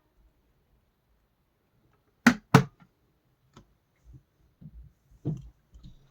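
Two sharp clicks about a third of a second apart, then a few fainter knocks, from handling the plastic kettle.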